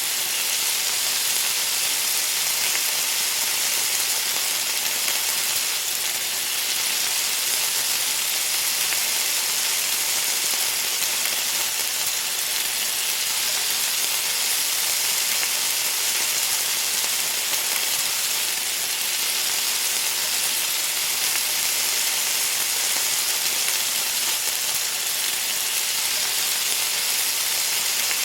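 Hot food sizzling on a pan or griddle: a steady, dense hiss of fine crackles with no pauses.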